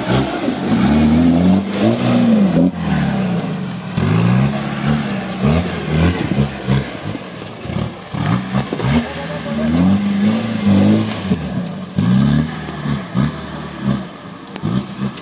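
Mahindra 4x4 jeep engine revving hard in repeated bursts, its pitch climbing and dropping every second or two, while the jeep works its way up a slippery mud slope under heavy load.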